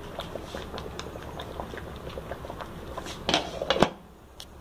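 Thick chipotle sauce simmering in a pan, with many small scattered pops. A glass lid clatters down onto the pan near the end, with two sharp knocks.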